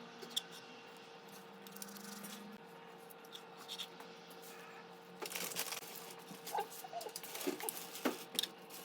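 Faint kitchen handling sounds: scattered light taps and rustles, busier in the second half, over a steady low hum.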